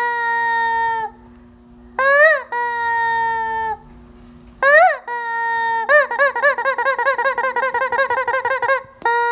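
Rubber squeeze chicken toy honking: several long, pitched honks that rise and then hold, then a quick run of short squeaks, about five a second, as it is squeezed rapidly.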